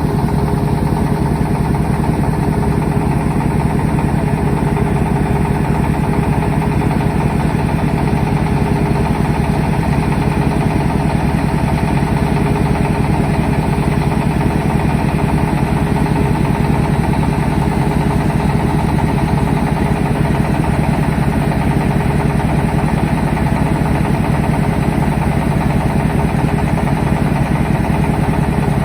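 Engine of a mobile rice-milling truck running steadily at an even speed, with a fast low pulse and a constant hum and no change in speed.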